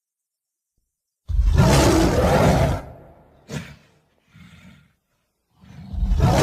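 Monster roar sound effects: a loud, deep roar comes in about a second in and lasts about a second and a half. Two short, softer sounds follow, then a second loud roar starts near the end.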